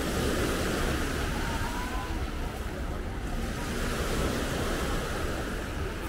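Sea waves breaking and washing on a beach shore, a steady rush that swells twice, once right at the start and again around three to four seconds in.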